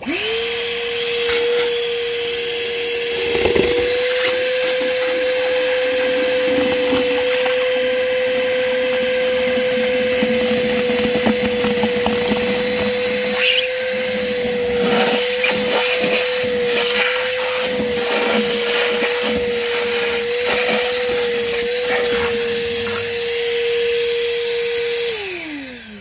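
Ridgid 18V cordless 9-gallon wet/dry shop vac (HDO918) starting up and running at a steady high whine while its hose sucks water out of a bucket. Irregular slurping comes through in the second half as water is drawn in. Near the end the vac is switched off and the whine falls away as the motor winds down.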